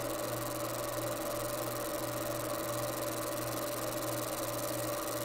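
30-watt fiber laser engraver running while it marks an AR-15 lower, a steady hum with an even hiss over it.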